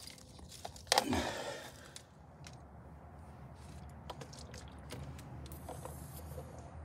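A plastic alarm clock knocked down onto a concrete slab about a second in, then scattered faint clicks as it is handled and a long-nosed utility lighter is worked, over a low steady background rumble.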